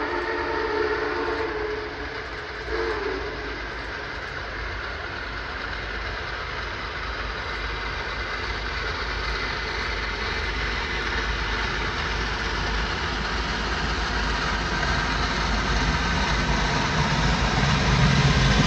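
A train sounds a chord whistle of several steady notes that stops about three seconds in. After that the noise of the train grows steadily louder as it approaches.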